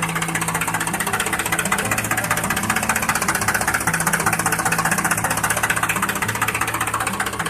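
A small electric motor running with a fast, steady buzzing rattle, under background music with a stepping bass line.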